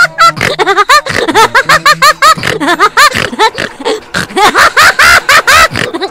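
High-pitched laughter: a quick run of short giggles one after another, each rising then falling in pitch.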